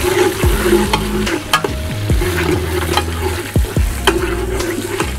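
Sliced onions frying and sizzling in hot ghee in an aluminium stockpot, stirred with a steel ladle that clinks against the pot several times, over a steady low hum.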